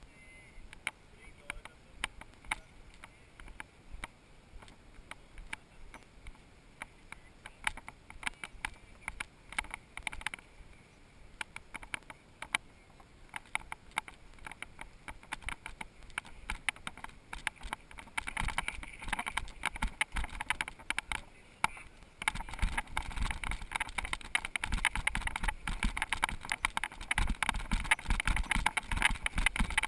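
Mountain bike on a rough trail: a steady stream of clicks and rattles from the bike and tyres over stones, growing louder and busier about two-thirds of the way in, with a low rumble joining soon after.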